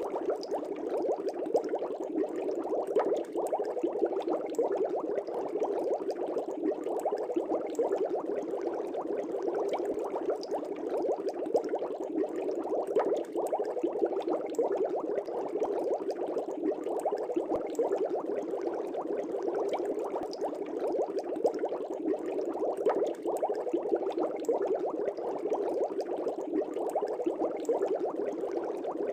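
Aquarium air bubbles rising and breaking at the surface of a fish tank, a steady dense bubbling.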